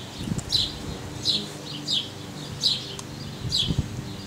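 A bird repeating one short, high, falling chirp at a steady pace, about three chirps every two seconds.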